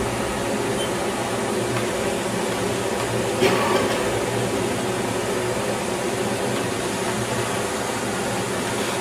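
Steady machine hum with fan-like noise from a Haas Mini Mill CNC milling machine standing powered up, with one brief louder sound about three and a half seconds in.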